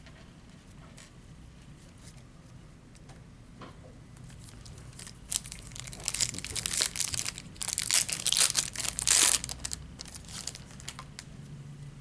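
A trading-card pack wrapper being torn open and crinkled. It starts with a few faint rustles, then about five seconds in comes a dense run of loud tearing and crinkling that dies away near the end.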